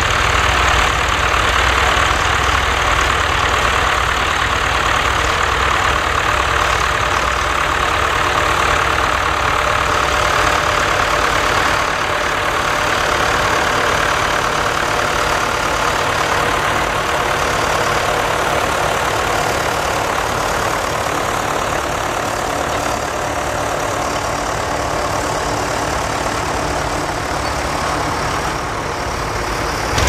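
Vintage Case tractor's engine running steadily as it pulls a trailing plough through the soil, growing slightly fainter toward the end as it draws away.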